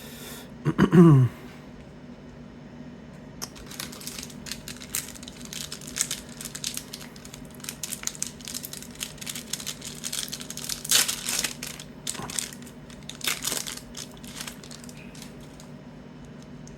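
A short, falling vocal sound about a second in, then a long run of irregular crinkling and crackling from a trading-card pack's wrapper being torn open and handled.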